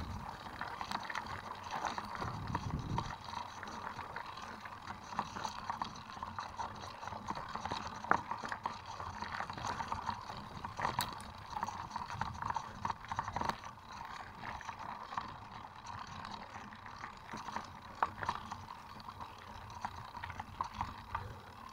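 Mountain bike rolling over a dirt and gravel trail: steady tyre noise on stones and leaves, with frequent clicks and rattles from the bike.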